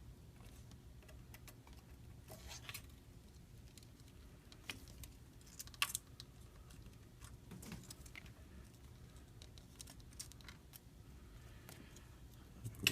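Faint, scattered light clicks and taps of small repair tools working on an iPhone 5c's internals while the last screw and the charge port flex cable are freed.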